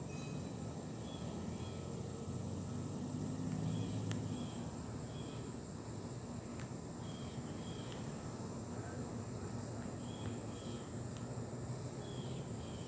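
Outdoor ambience: a steady high insect drone, short paired bird chirps every second or two, and a low rumble of distant traffic, with a few faint clicks.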